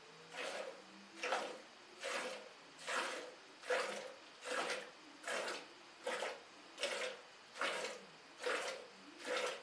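Cow being milked by hand: streams of milk squirting into a steel bucket in a steady rhythm, one squirt a little under every second, about a dozen in all.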